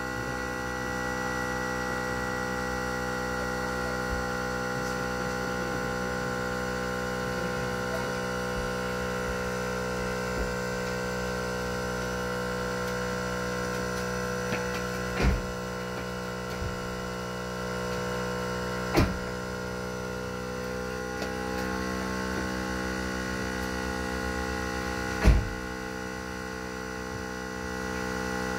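Xiaomi 70mai portable 12-volt car air compressor running steadily with an even electric hum, inflating a collapsible space-saver spare tyre toward 3 bar. Three sharp knocks stand out, the loudest near the end.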